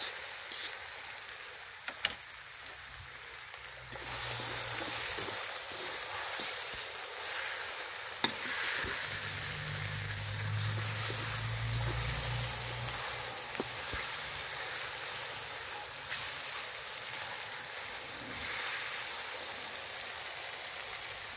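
Deep-fried quails cooking again in a thick chili sauce in a steel wok, sizzling steadily and growing louder about four seconds in. A metal spoon stirring the sauce clicks against the wok now and then.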